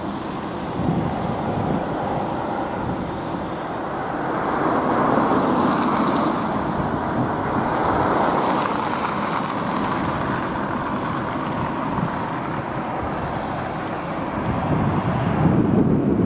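Airbus A319-111 airliner's CFM56 turbofan engines as the jet comes in to land on the runway: a steady jet roar that swells and grows loudest near the end.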